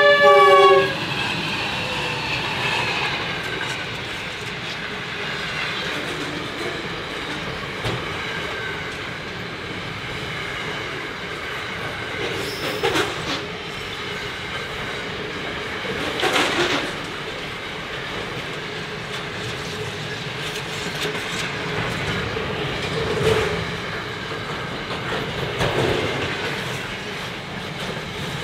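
Freight train behind NR class diesel locomotives: a multi-note horn blast ends about a second in, its pitch dropping slightly, then the wagons roll past with a steady clickety-clack of wheels and a few louder surges.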